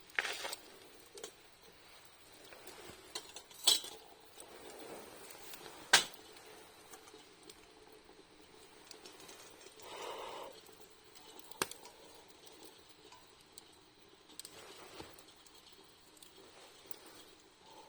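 Scattered light clinks and taps of camp cookware and utensils being handled, with a few sharp clicks and brief rustles in between.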